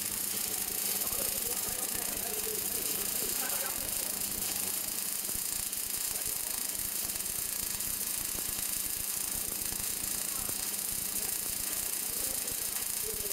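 MIG welding arc of an automatic pipe welding machine, laying a weld around a steel pipe joint and throwing spatter, sounding as a steady hiss.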